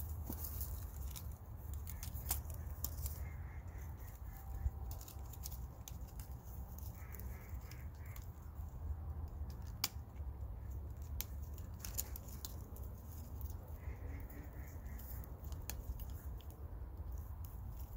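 Crows cawing faintly, in three short bouts of a few caws each. Scattered light clicks and scrapes come from a plastic tree sleeve being fitted around a young trunk in sawdust mulch, over a steady low rumble.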